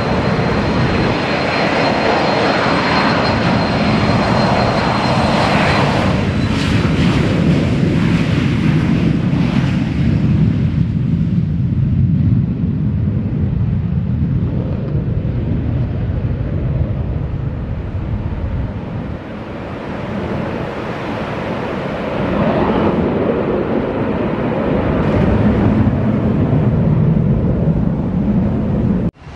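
Jet airliner's engines at takeoff thrust close by: a loud, steady rumble with a thin high whine over the first six seconds. The noise eases in the middle, swells again, and cuts off suddenly near the end.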